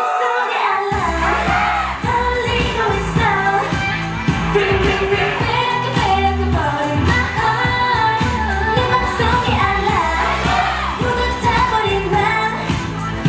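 K-pop dance track with a female group singing over a pounding beat. The bass is dropped out at the start and comes back in about a second in.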